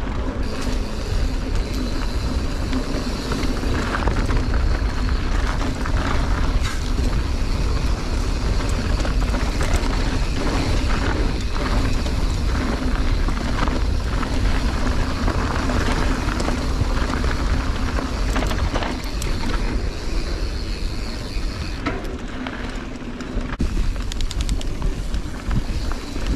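Mountain bike rolling fast down a dirt singletrack, recorded on a bike- or rider-mounted camera: heavy wind noise on the microphone over tyres on dirt and constant clicking and rattling from the bike over bumps. It eases briefly near the end.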